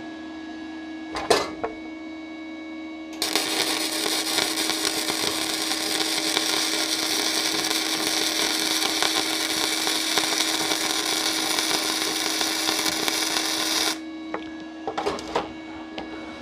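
Gasless flux-cored MIG arc welding a bead on 0.7 mm sheet steel with 0.6 mm flux-core wire, pushed (forehand). The arc strikes about three seconds in, crackles steadily for about ten seconds and cuts off suddenly. A couple of knocks come before it.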